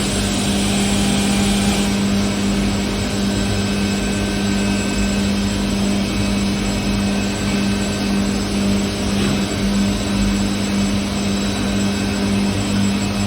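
SW BAS03-22 double-spindle machining center running, a steady mechanical hum with a constant low tone.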